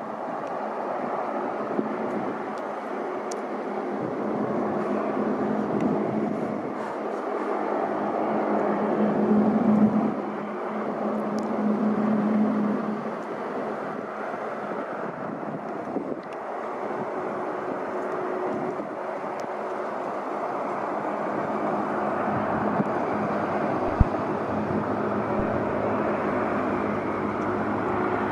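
Steady engine rumble with a low hum, swelling louder twice around the middle, and a single sharp click near the end.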